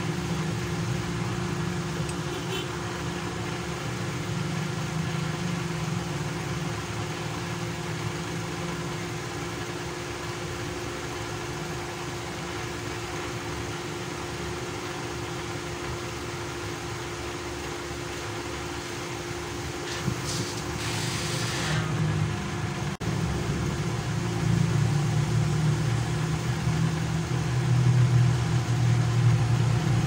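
A steady low mechanical drone with a constant hum, growing louder over the last few seconds, with a brief hiss about twenty seconds in.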